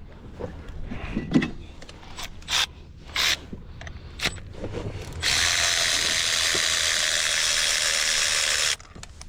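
Hand tools clicking and knocking as a spark plug socket is worked on the spark plug of cylinder 3, then a loud, steady rushing noise for about three and a half seconds that cuts off suddenly.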